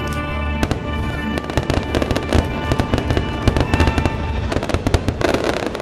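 Rapid barrage of fireworks bursts and crackling, getting denser after the first second or so, over the show's music: the finale of a fireworks display.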